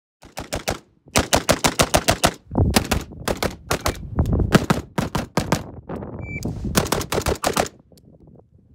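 AR-15 pistol fired in rapid semi-automatic strings, the shots coming about seven or eight a second at their fastest. A shot timer beeps once about six seconds in.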